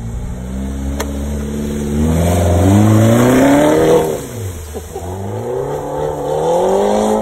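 Mini Cooper Countryman's engine revving hard as it is driven flat out through a muddy water hole, its pitch climbing for about four seconds while water and mud spray loudly off the car. About four seconds in, the engine note drops sharply, then climbs again as the car pulls away across the dirt.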